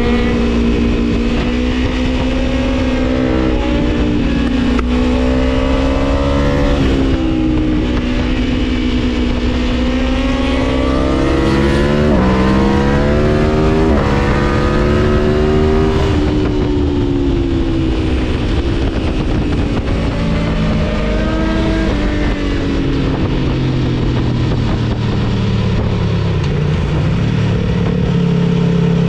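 Aprilia Tuono V4 1100's V4 engine, on a Gabro Stage 3 tune, pulling hard under riding load: its pitch climbs, steps down sharply at two quick gear changes around the middle, then falls away slowly as the bike slows before rising again near the end, over a steady rush of wind.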